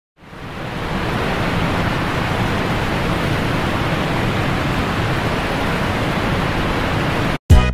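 Steady, even hiss of rushing noise, like static, that fades in over the first second and cuts off suddenly near the end, where music begins.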